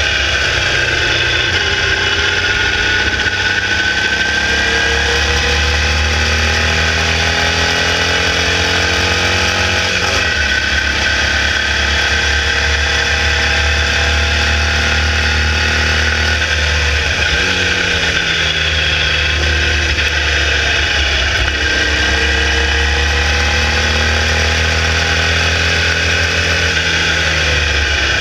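Air-cooled 1200cc Volkswagen flat-four of a Formula Vee race car at racing speed, heard onboard. The engine note climbs steadily under acceleration, drops sharply about ten seconds in and again around seventeen seconds, then climbs again.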